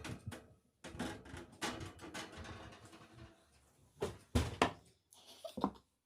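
Quiet knocks and clatter of an oven door and baking tray being handled as the cookies are checked, with the sharpest knocks a little past the middle.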